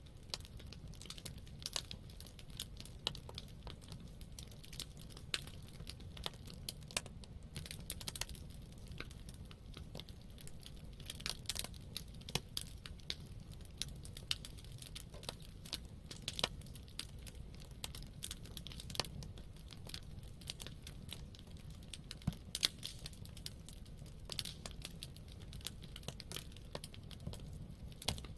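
Wood campfire burning, with irregular crackles and pops over a low steady rumble of the flames.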